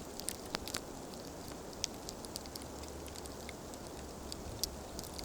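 Wood campfire crackling, with sharp irregular pops and snaps over a steady low rumble.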